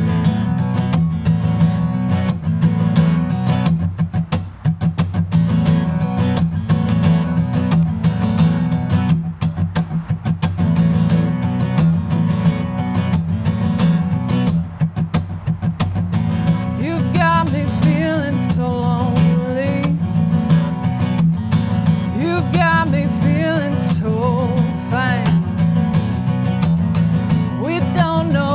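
Strummed acoustic guitar playing a steady rhythm, joined about halfway through by a singing voice.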